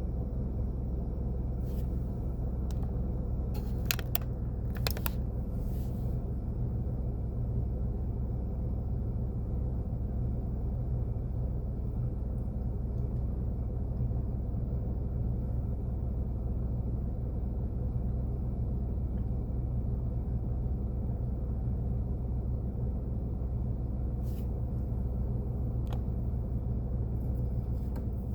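A steady low mechanical hum with a few short sharp clicks, a cluster about four to five seconds in and a few more near the end.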